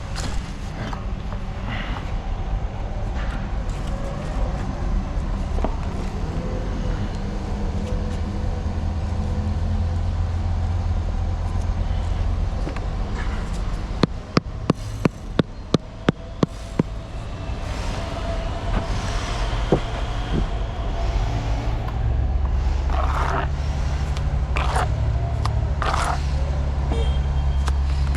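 A motor engine running steadily with a low rumble. Around the middle comes a quick run of about eight sharp taps, and a few clatters come near the end.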